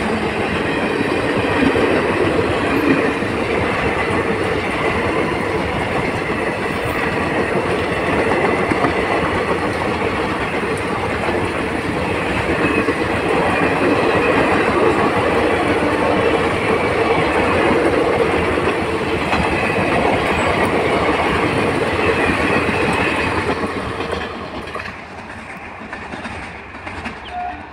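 Coaches of the Durg–Nautanwa superfast express passing at full speed, a loud, steady rush of wheels on rails. It fades away near the end as the last coach goes by and the train draws off.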